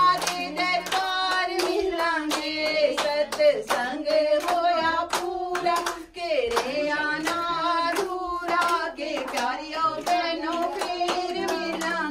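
A group of men and women singing a Hindu aarti hymn together, with steady hand clapping in time, about two to three claps a second.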